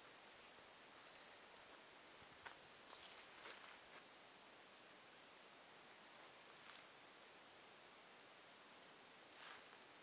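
Insects trilling in a steady, high, thin tone, joined about halfway by a second insect chirping in quick pulses, several a second. A few faint clicks.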